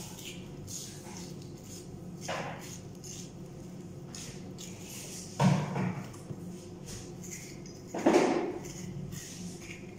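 Food-prep knocks and clatters of a utensil on a kitchen work surface. Three short, sudden sounds come about two and a half seconds apart, the last two the loudest, over a steady low hum.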